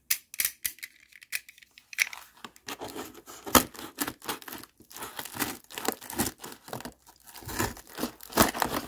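Yellow box cutter slicing through packing tape and a cardboard parcel, the cardboard tearing as it goes. It makes a run of short, irregular cutting strokes, sparse at first and busier from about two seconds in.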